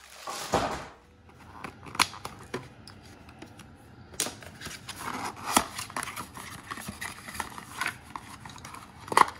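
Packaging being handled: a rustle of plastic, then scattered sharp taps and clicks with brief rustling as a small cardboard box is handled and opened.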